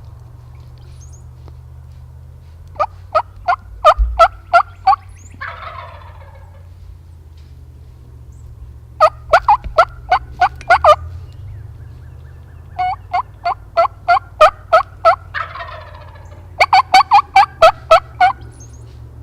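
Wild turkeys calling: four runs of loud yelps, each of six to nine evenly spaced notes, and a rolling gobble answering after the first run and again near the end.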